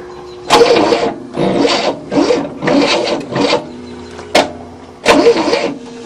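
Starter motor of a 1967 Cadillac whirring in several short bursts, about half a second each, with a sharp click about four seconds in. The engine does not catch, which the owners suspect is a poor wire to the starter.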